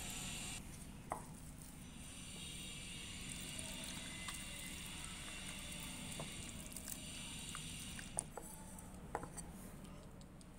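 A hand squishing and squelching thick wet flour batter in a glass bowl, faint, with a few light clicks.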